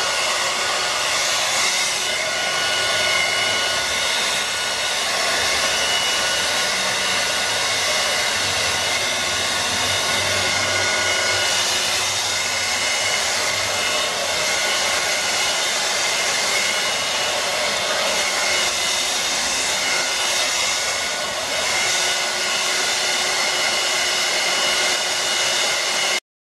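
Handheld hair dryer blowing steadily as it dries and styles a wig, a rush of air with a faint steady whine over it. It cuts off suddenly near the end.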